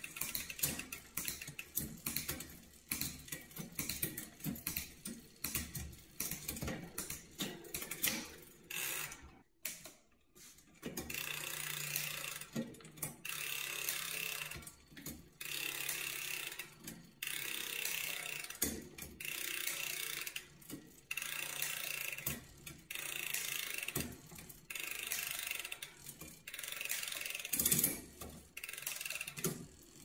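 SRAM Eagle 12-speed mountain bike drivetrain turned over by hand on a stand: the chain runs over the cassette and through the new rear derailleur's pulleys, with clicks as it shifts up and down the cogs. There is a short pause about ten seconds in.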